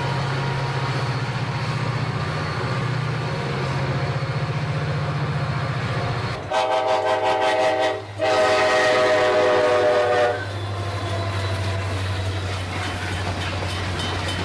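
Diesel locomotives running past with a steady low engine drone. About six seconds in, a locomotive air horn sounds two long blasts, the second a little longer, and then the engine drone carries on.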